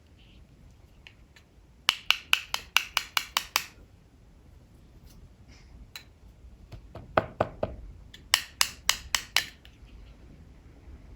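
Pencil on paper making quick, short strokes. There are two runs of sharp ticks, about five a second, the first about two seconds in and the second a little past the middle.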